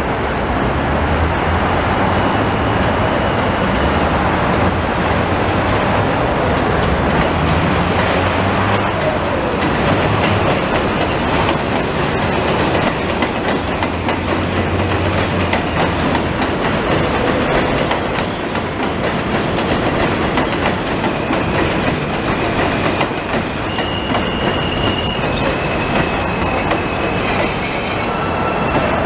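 Subway train drawing into an elevated station and slowing, its steel wheels clattering and rumbling on the rails of the elevated structure. A thin, high squeal comes in near the end as it brakes.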